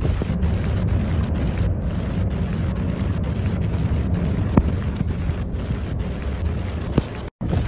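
Heavily distorted, bass-heavy rumbling noise, with a couple of sharp clicks and a brief cut-out to silence near the end.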